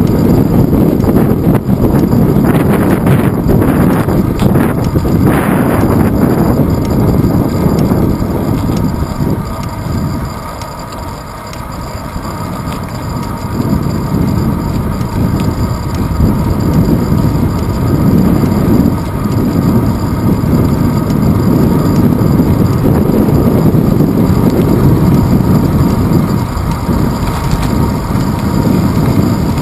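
Wind buffeting a handlebar-mounted GoPro Hero 2 on a moving bicycle, mixed with tyre and road rumble from the pavement. There are a few rattling jolts in the first six seconds, and the noise eases off briefly about ten seconds in.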